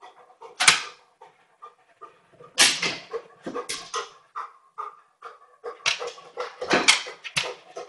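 A dog pawing and nosing at a white kitchen drawer: a series of sharp knocks and scrapes of paws and claws against the drawer, mixed with the dog's short whines.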